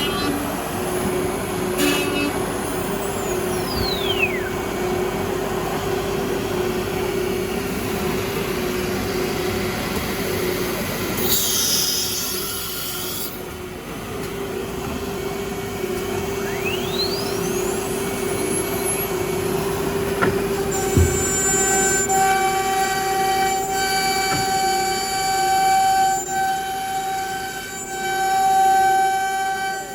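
CNC router running with a steady whine. Its spindle winds down with a falling whine, a burst of hiss follows about eleven seconds in, and the spindle winds back up with a rising whine, as in an automatic tool change. From about twenty seconds in, the machine runs on with several steady tones.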